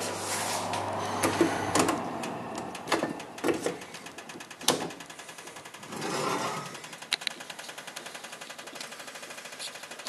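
An oven's low hum cuts off about two seconds in. Several clicks and knocks follow as the oven door is opened and the rack handled, then a faint, fast, even ticking.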